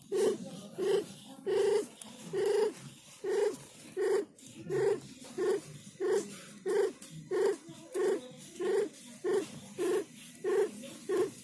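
Mother cat in labour breathing hard through her open mouth, each short breath sounding like a purr, in an even rhythm of about one and a half breaths a second.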